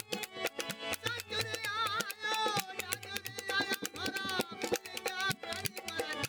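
Rajasthani Manganiyar folk song performed live: a sung melody with wavering, ornamented pitch over fast, dense clicking percussion and a repeating low pulsing beat.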